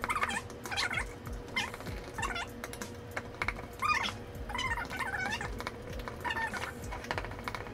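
A spoon stirring brownie batter in a mixing bowl, with rapid clicks as it knocks against the bowl. Over it come about eight short high-pitched cries with bending pitch, one every second or so.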